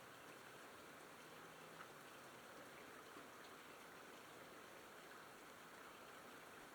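Faint steady rainfall, a hiss of many small drops, with one slightly louder drop about two seconds in.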